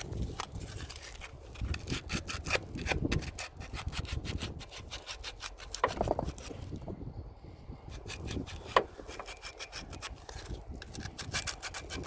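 Hand sanding the end of a metal AC hose fitting to clean it up, in rapid back-and-forth rubbing strokes with a short pause about seven seconds in.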